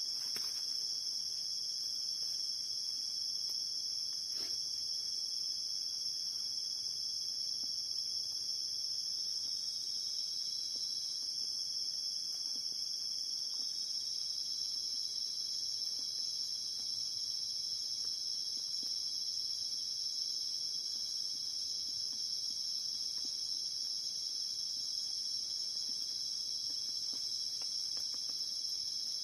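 Night-time chorus of crickets and other insects: a constant, shrill, high-pitched drone with several pitches layered together, never letting up.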